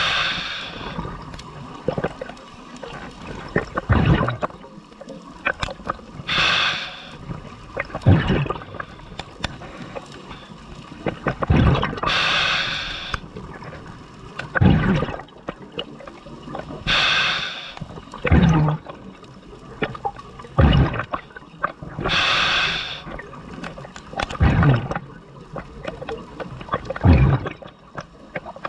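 Scuba diver breathing underwater through a regulator: a hissing inhalation about every five seconds, alternating with bursts of exhaled bubbles that gurgle and thump.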